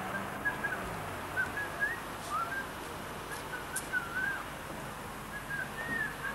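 A string of short, high whistled chirps, irregular and unevenly spaced, some gliding up and some down, over a steady low background noise.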